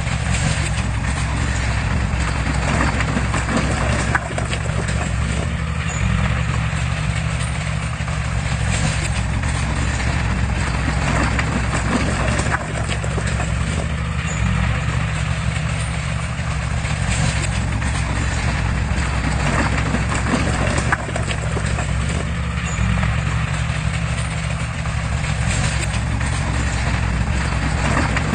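Heavy diesel engine of a Komatsu bulldozer running steadily, with a knocking clatter over the engine hum.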